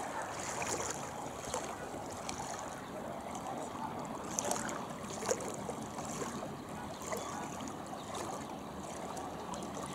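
Steady wash of water and wind noise with a few faint, scattered clicks.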